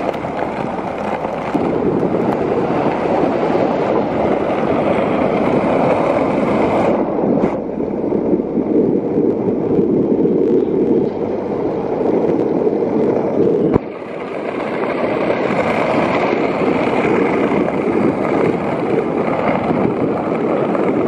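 Steady rolling rumble of small wheels on rough tarmac, with wind on the microphone. The noise drops suddenly about 14 seconds in, then builds again.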